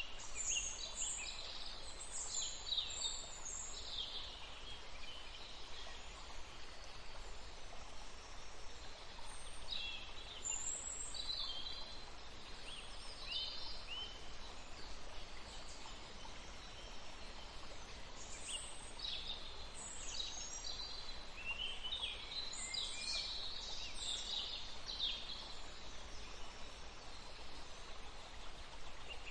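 Birds chirping: scattered clusters of short, high calls that sweep in pitch, over a steady low hum.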